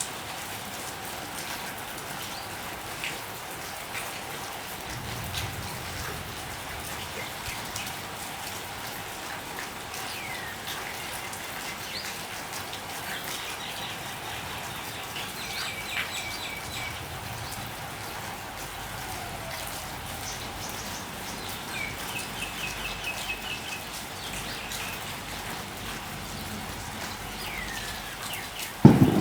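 Steady rain falling, with birds chirping and trilling now and then through it. A sudden loud crack, thunder from the storm, breaks in right at the end.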